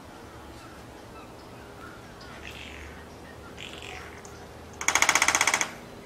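Male red-bellied woodpecker drumming: a single fast, even roll of about fifteen strikes lasting under a second, a little before the end. This is the territorial drumming that males use to stake out a territory.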